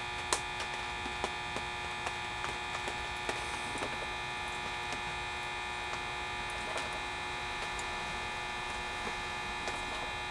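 Steady electrical hum with a few faint scattered clicks and taps.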